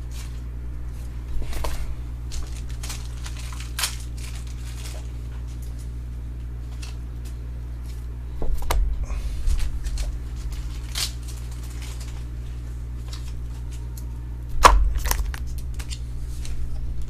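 Trading cards and their packaging being handled on a table: scattered clicks, rustles and short tearing or scraping noises, with a sharper bump about a second and a half in, a longer stretch of handling about eight seconds in and the loudest knock near the end, all over a steady low hum.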